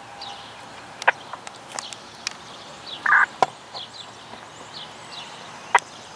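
Small birds giving short, falling chirps now and then over a steady background hiss, with a few sharp clicks and one brief louder burst a little after three seconds.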